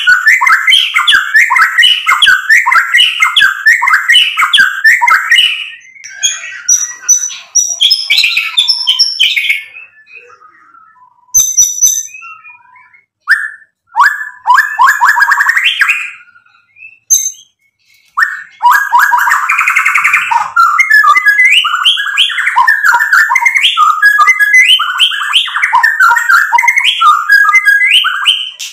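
Male white-rumped shama singing loudly in fast, varied phrases full of rapid repeated-note runs. The song thins out with short gaps in the middle, then returns as a long unbroken run near the end.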